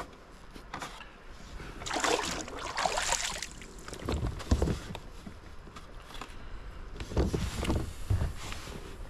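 Handling noise on a plastic fishing kayak as a caught smallmouth bass and a plastic measuring board are moved about: a burst of rustling about two seconds in, then dull knocks against the hull around the middle and again near the end.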